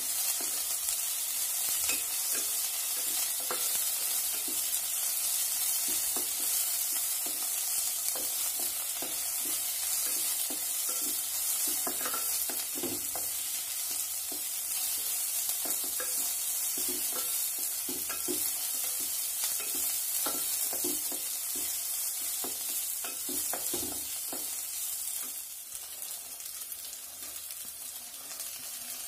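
Onions, green chillies, garlic and mint leaves sizzling in sesame oil in a pan, with a wooden spatula scraping and knocking against the pan as they are stirred. The sizzle drops a little near the end.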